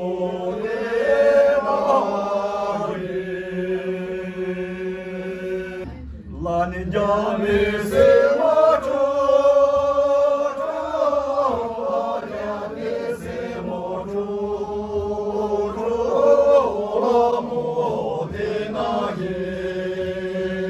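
Group of Sherpa men and women singing the slow opening verse of a Shyabru dance song together in Sherpa, without instruments, in long drawn-out phrases with a short breath break about six seconds in.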